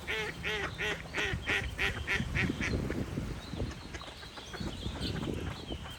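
A duck quacking a quick run of about ten quacks, roughly three a second, which stops about three seconds in. Faint bird chirps follow over low, irregular rustling.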